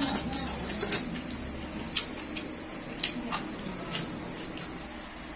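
Crickets chirring steadily in one high continuous tone, with a few light clicks of a fork and spoon against a metal tray.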